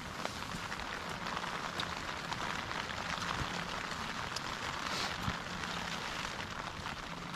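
Steady rain falling on the tent fabric, heard from inside the tent: an even hiss with scattered tapping drops.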